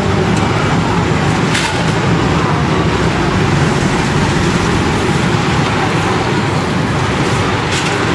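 Steady, loud city street traffic, vehicle engines running, with two brief knocks, one about one and a half seconds in and one near the end.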